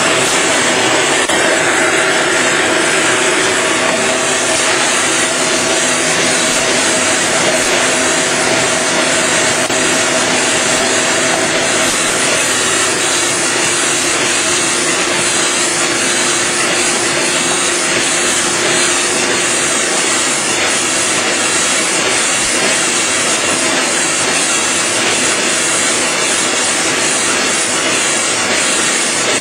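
Kase Equipment nine-colour dry offset cup and pail printing machine running: a steady, dense mechanical noise with hiss. A faint steady hum in it fades out about twelve seconds in.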